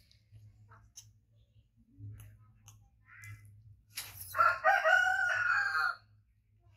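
A rooster crowing once, a single drawn-out pitched call lasting about a second and a half, starting about four seconds in. Faint scattered clicks come before it.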